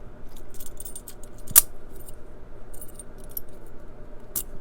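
Keys jangling and metal clicking as a Brinks 50 mm padlock is worked with its key, showing that it opens; one sharp metallic click about a second and a half in.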